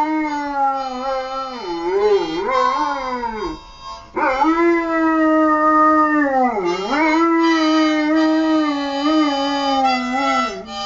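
Dog howling in two long, wavering howls, with a short break about four seconds in.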